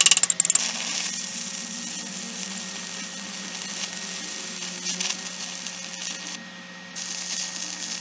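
A chipping hammer taps rapidly on the steel for the first half second. Then a stick-welding arc crackles and hisses steadily as a CHEM-WELD 7100 electrode, made for rusty and dirty steel, runs a bead on rusty flat bar. About six and a half seconds in the arc cuts out for half a second and then restrikes, the occasional arc outage these electrodes showed.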